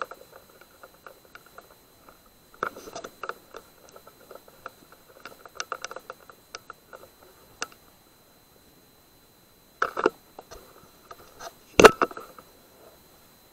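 Handling noise of a BSA R10 air rifle as its magazine is taken out and refitted: scattered clicks and brief rustling, with two louder clunks about ten and twelve seconds in.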